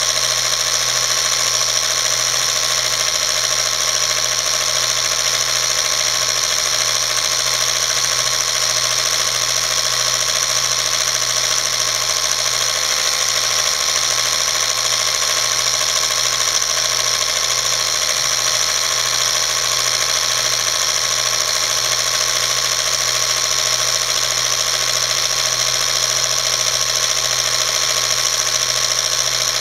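Home-movie film projector running: a steady mechanical whir from its motor and film transport.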